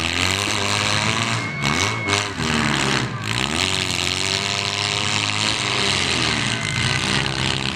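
Several small-car engines in a demolition derby running and revving together, their pitch rising and falling.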